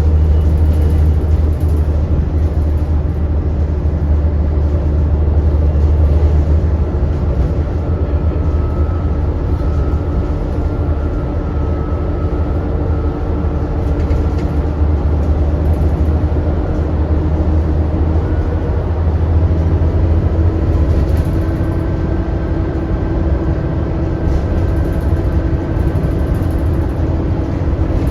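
ADL Enviro400 double-decker bus heard from on board while driving: a steady low engine rumble with a thin whine over it, the 'hoover' note of this bus.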